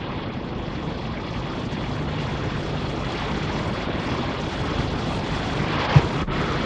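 Steady rushing background noise that slowly grows a little louder, with one short low knock about six seconds in.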